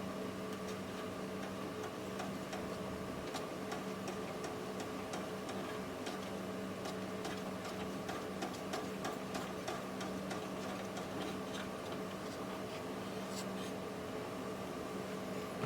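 A screwdriver undoing small screws from a PC motherboard: light, irregular clicks and ticks over a steady hum.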